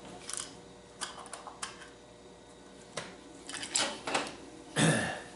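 Light clicks and rattles of a small container of detent pins and springs being handled, then a louder knock near the end as it is set down on the table.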